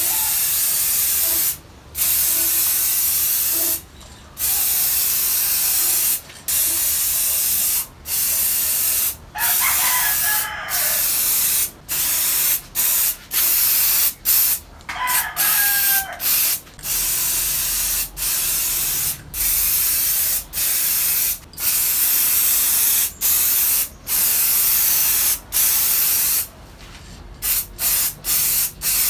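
Aerosol spray-paint can hissing in many short bursts of a second or two each, with brief pauses between them, as paint is laid onto a bicycle frame.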